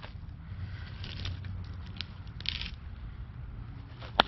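Crunching and scraping on sawdust-covered ground as a freshly cut log round is shifted, with footsteps, and one sharp click near the end. The electric chainsaw is not running.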